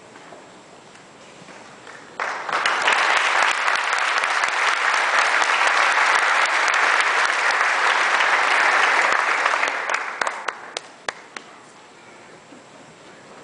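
Audience applauding in a large hall: the clapping starts suddenly about two seconds in, holds steady for several seconds, then dies away, ending in a few scattered last claps.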